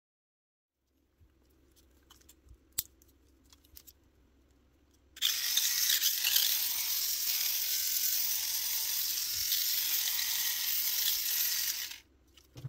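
Tamiya Dual Ridge Jr. Mini 4WD car's small electric motor and plastic gear train running with the wheels spinning free, a harsh steady whir. It starts suddenly about five seconds in and cuts off suddenly about seven seconds later, after a few light plastic clicks from handling the chassis.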